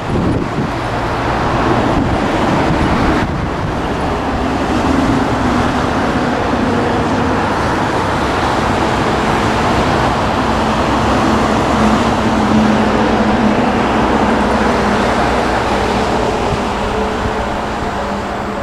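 Single-car diesel railcar approaching slowly, its engine running with a low hum under a steady rushing noise.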